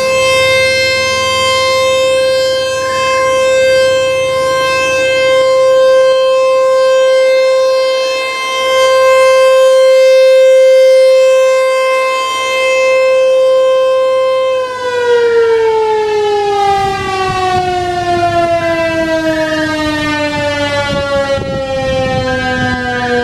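American Signal T-128 outdoor warning siren sounding one steady, loud tone that swells and fades in loudness as it rotates. About two-thirds of the way through it is shut off and winds down, its pitch sliding steadily lower.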